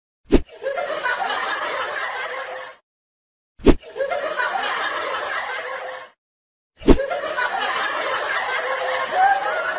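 A sharp smack followed by about two and a half seconds of people laughing, heard three times over in identical repeats.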